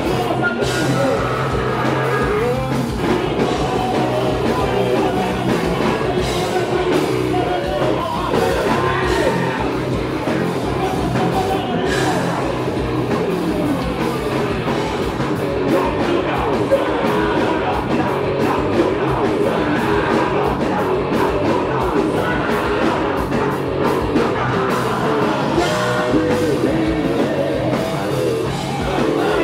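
Live heavy rock band playing: electric guitars, bass and drums, with a vocalist singing and shouting into a microphone.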